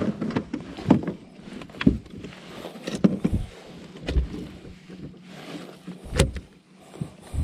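Knocks and rubbing on a plastic kayak as the angler shifts about in the seat, a knock roughly once a second.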